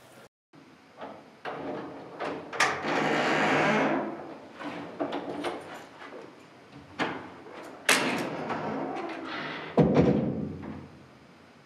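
A string of knocks and clunks, with about a second of loud noise around three seconds in. A heavy thud comes near the end and fades away.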